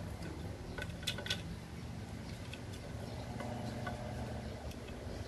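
Light, scattered metallic clicks and ticks as an aftermarket horn and its mounting hardware are handled and fitted to a scooter's metal bracket, with a small cluster about a second in, over a low steady hum.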